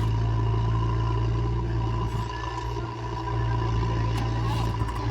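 Heavy diesel engine of a working machine running steadily at a constant speed, close by.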